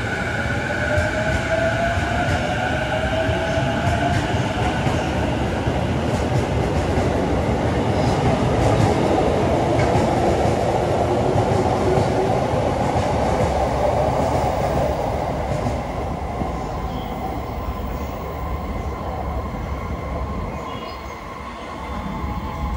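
Sotetsu electric commuter train pulling out: its motors whine, rising in pitch as it picks up speed. Then the wheels running on the rails grow louder as the cars go by and fade away in the last few seconds.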